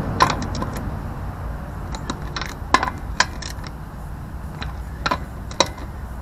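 Scattered sharp metallic clicks and clinks from a ratchet wrench and socket as lug nuts are tightened on an alloy wheel, about eight in all, over a steady low rumble.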